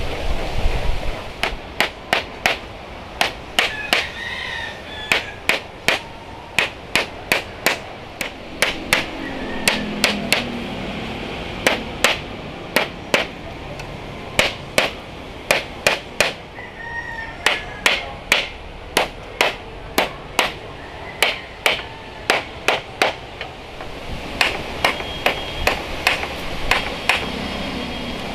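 Claw hammer nailing bamboo slats onto a wooden trolley frame: sharp strikes about three a second, in runs broken by short pauses.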